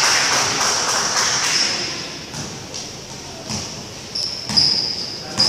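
Sounds of a basketball game in a large, echoing gym. A broad wash of background noise fills the first couple of seconds, then it goes quieter, with a few dull thumps and short, high-pitched sneaker squeaks on the court floor in the last second or so.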